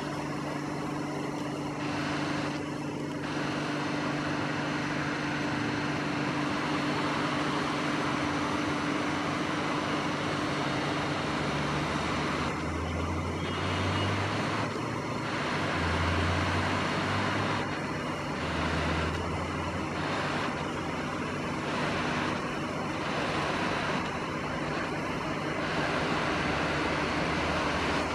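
Steady distant rumble of an approaching diesel freight train, a deeper engine drone coming and going in waves from about halfway through, over a constant background roar.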